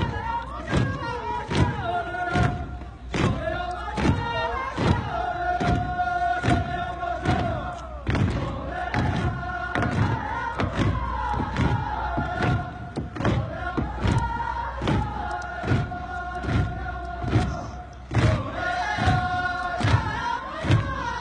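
Earth being rammed into wooden wall formwork by a crowd working in unison, making regular thuds at about two a second, while the workers sing a chanted work song in long held notes.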